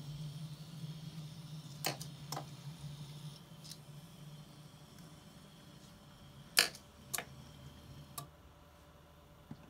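Faint, steady hum and thin whine of a Faller Car System model car's tiny 7 mm electric motor, fading as the car drives away, broken by about six sharp clicks.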